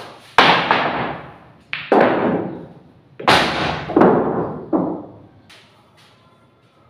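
Pool balls knocking: a string of sharp clacks and thuds as balls are struck, hit each other and the cushions and drop into pockets, each trailing off briefly. The knocks die away about five seconds in.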